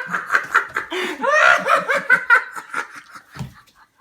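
Hearty laughter in quick repeated bursts, fading into short breathy snickers near the end.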